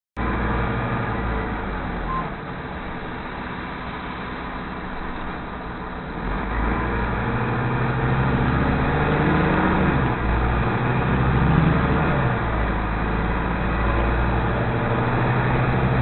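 Engine and road noise heard from inside a Nova LFS city bus under way. About six seconds in the engine grows louder and its note rises as the bus accelerates.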